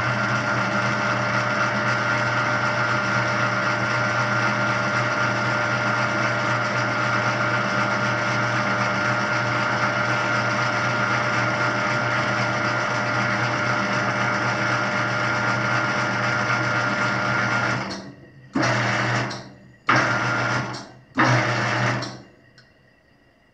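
Laguna 25-inch planer's motorised table-lift drive running steadily as the table travels to a 6-inch preset. About three-quarters of the way through it stops, then runs in three short spurts as it settles onto the target height.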